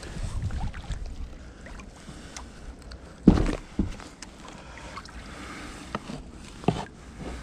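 Kayak paddling on calm canal water, with a few sharp knocks: the loudest about three seconds in, a second half a second later, and another near the end.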